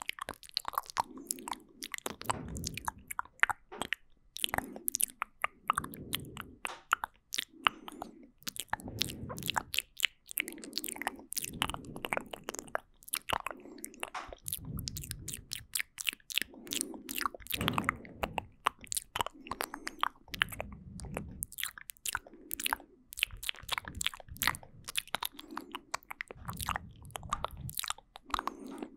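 Close-miked ASMR mouth sounds: rapid wet clicks and smacks, with soft low puffs every second or two.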